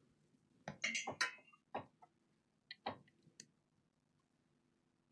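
Small hard clicks and clinks of parts being handled on a workbench: a quick cluster about a second in, then a few single clicks, each sharp and brief.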